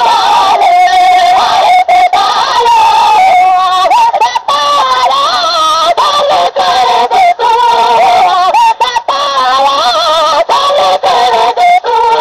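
Sindhi molood, devotional singing: a high voice holding long, wavering melodic lines that slide from note to note without a break.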